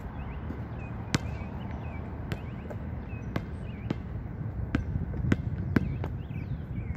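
A basketball shot hitting the hoop with a sharp knock about a second in, followed by several more single thuds of the ball bouncing and being dribbled on the outdoor court.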